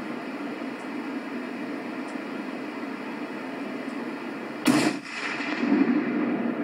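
A single rifle shot, sharp and loud, about two-thirds of the way in, over a steady hiss. Louder rushing noise follows the shot.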